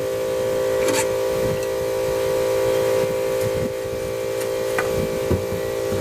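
Steady mechanical hum on several pitches at once, with a few light clicks and knocks about a second in and again near the end.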